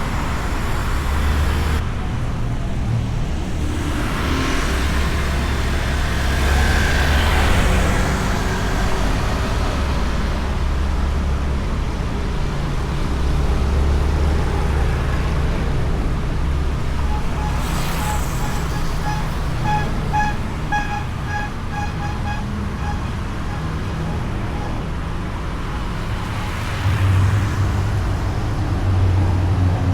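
Riding sound from a Honda Beat scooter: its small single-cylinder engine running steadily under a low rumble of wind and road noise, with other traffic swelling past now and then. A little past halfway, a quick run of short, evenly spaced high beeps lasts about five seconds.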